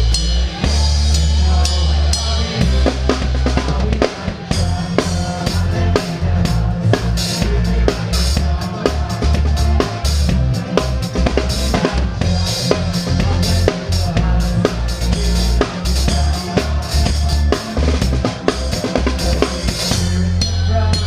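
Drum kit played live with a band in an instrumental stretch: rapid snare, rimshot and kick drum strikes, with steady bass underneath.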